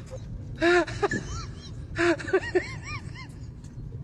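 An animal's voice: a run of short calls, each rising and falling in pitch, in a few quick clusters.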